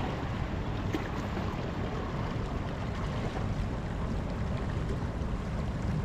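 Ocean waves washing and splashing over lava rock and into a tide pool, a steady wash of surf with wind rumbling on the microphone.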